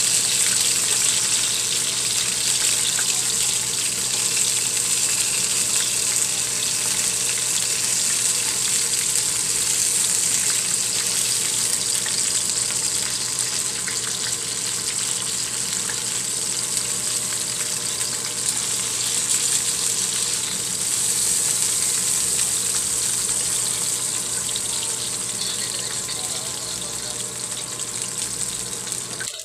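Hot cooking oil sizzling steadily in a nonstick wok where tilapia is being pan-fried, a continuous hiss that eases a little near the end. A steady low hum runs underneath.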